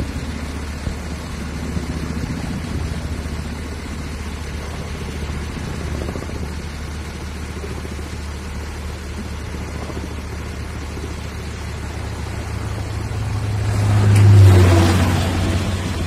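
Firefighting helicopter in flight, a steady low rotor rumble that swells to its loudest about fourteen seconds in as it passes close, then fades again.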